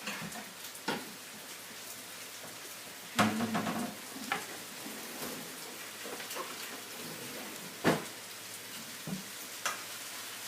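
Stir fry of vegetables and pork sizzling in a pan, with a utensil knocking and scraping against the pan as it is stirred and scooped out. The loudest knocks come about three seconds in and again near eight seconds.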